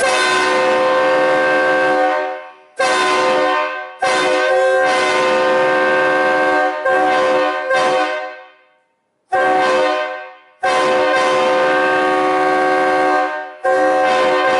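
Mutt three-chime train air horn with bells 1, 2 and 4, sounding a steady chord in about eight long and short blasts.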